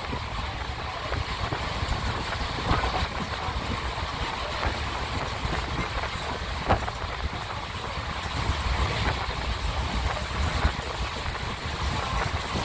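Train running at speed, heard from aboard: a steady rumble of wheels on rails with a few sharp clicks scattered through.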